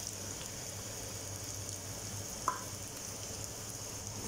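Chopped bitter gourd and onion frying in oil in a kadai, a steady soft sizzle, with one small tick about two and a half seconds in.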